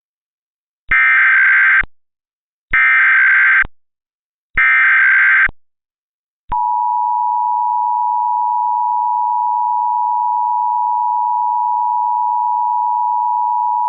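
Emergency Alert System tones: three one-second bursts of SAME digital header data about a second apart, then the steady EAS two-tone attention signal (853 and 960 Hz sounding together) starting about six and a half seconds in and holding.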